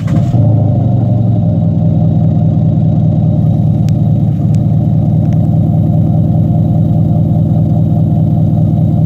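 VW Golf 7 GTD's 2.0 TDI diesel idling right after start-up, with its active sound actuator playing a loud, steady synthetic engine note at a fixed setting close to its maximum 'Assi' profile. The note is a little fuller in the first second or so, then holds steady.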